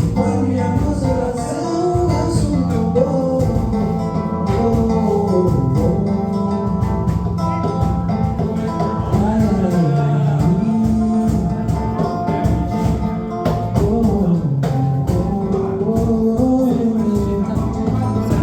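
A man singing a song live, with guitar accompaniment.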